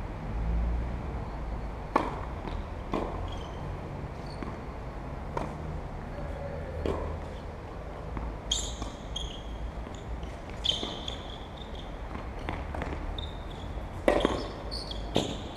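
Tennis ball being struck and bouncing on a court: a handful of sharp, spaced-out knocks, the loudest two close together near the end, over a low steady rumble. Short high chirps come in from about halfway.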